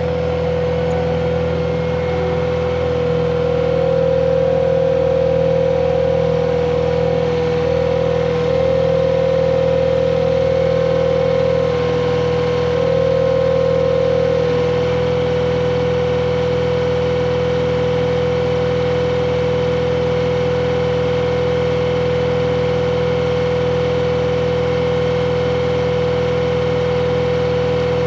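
Cat 259D compact track loader's diesel engine running steadily with a strong, even whine. For about ten seconds in the first half the note rises a little and gets louder, then settles back.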